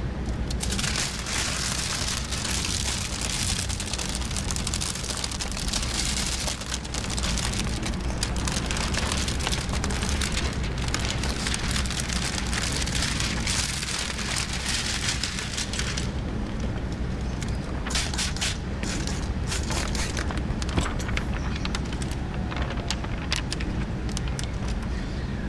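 Plastic window-tint film crinkling and rustling as a large sheet is handled and pressed against the windshield: a continuous rustling hiss for the first two-thirds, then scattered sharp crackles. A steady low hum runs underneath.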